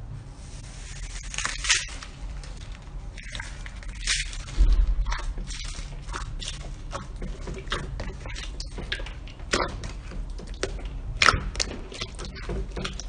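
Slime being squeezed and worked by hand, giving a run of irregular, short, wet clicks and crackles, with a few louder pops among them.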